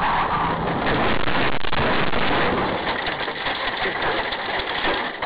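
A car on the road: continuous vehicle and road noise, with scattered sharp clicks and a louder stretch about a second in.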